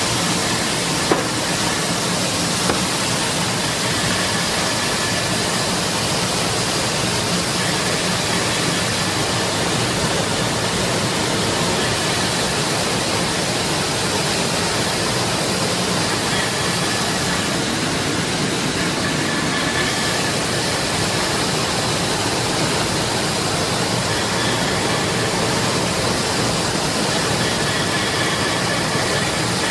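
Corn peeling and grinding machine running: a steady, even rushing noise as it mills and pours out grits, with a faint low hum underneath. Two small ticks come in the first three seconds.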